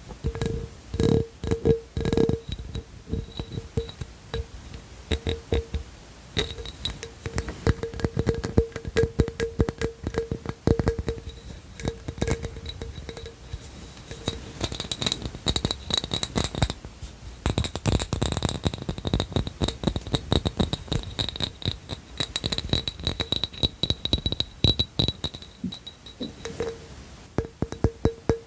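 Fast tapping and clattering on hard objects, with fingernails and the objects' own rattles. Many of the taps ring with a clear tone that comes and goes.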